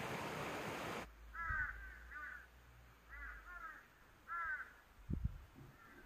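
Mountain stream rushing over rocks, cut off abruptly about a second in. Then a bird gives short, hoarse calls about six times, with a couple of low thumps near the end.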